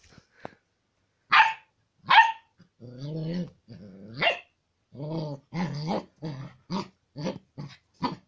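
Old English Sheepdog puppy barking and growling at its own reflection in a mirror. It gives two sharp barks, then low growls and a yelp, then a run of short growly barks about two a second.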